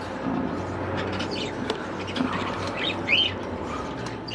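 Budgerigars chirping and chattering in short, scattered calls, with a faint low hum underneath.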